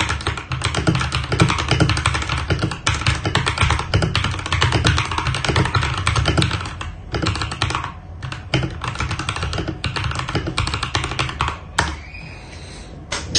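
Fast typing on a Langtu GK65 mechanical keyboard, most of its keys refitted with AKKO switches and AKKO PBT double-shot keycaps: a dense run of key clacks, with brief pauses about seven, eight and twelve seconds in.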